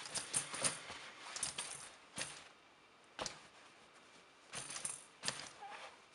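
Faint, irregular rattling and rustling clicks from a plush giraffe toy being shaken about, coming in short bunches with pauses between.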